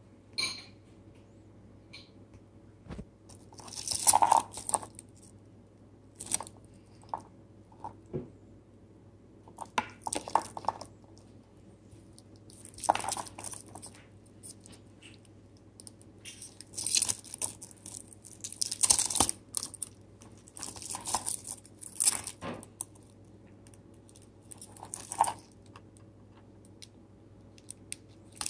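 Clear plastic protective film on a watch bracelet crinkling and rustling as the watch is handled, in irregular bursts every second or two, over a faint steady hum.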